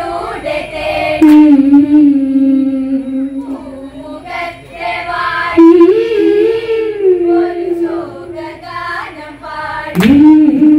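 Women singing an Onamkali song through a microphone and loudspeakers, holding long, drawn-out notes between short phrases.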